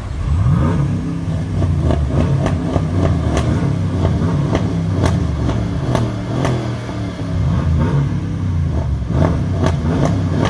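Mercedes-AMG GLE coupé revving its engine repeatedly at a standstill: a string of throttle blips, each rising and falling in pitch, with sharp exhaust pops and crackles scattered among them.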